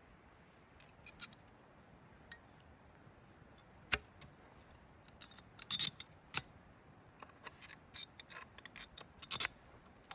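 Irregular sharp clicks and clinks of small hard objects being handled, with a loud click about four seconds in and a quick run of clicks around six seconds in.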